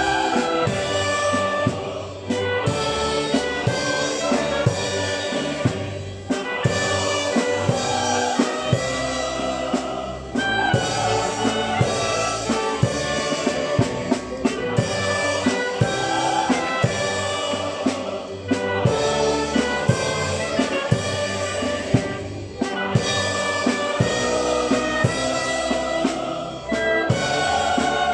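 Orchestra playing, bowed strings with brass and a steady beat of percussion, the level dipping briefly between phrases.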